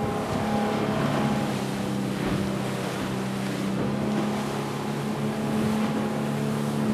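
Sportfishing boat's engine running steadily at cruising speed, with water rushing past the hull and wind.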